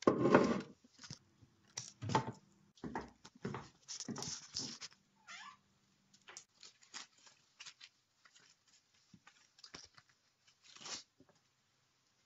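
Cat meows and short mewing calls, the loudest in the first second and one falling meow midway, followed by scattered soft clicks and taps.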